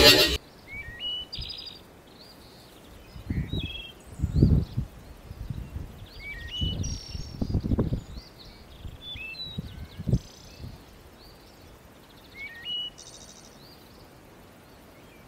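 Small birds chirping, short rising calls repeated every second or so. Several bursts of low rumble come between about three and eight seconds in and once more near ten seconds, louder than the birds.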